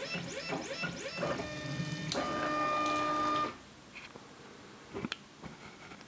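Stepper motors of a 3D printer used as a pen plotter whining as the head moves: first a quick run of short rising chirps, then a steady held tone from a fast straight travel move. The motors stop abruptly about three and a half seconds in, leaving a few faint clicks and a soft knock.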